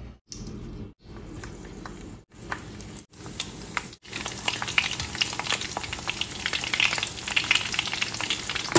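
Split dried fish (daing) shallow-frying in hot oil: a dense crackling and popping that becomes steady and busy from about four seconds in. Before that come a few brief, quieter stretches broken by short silent cuts.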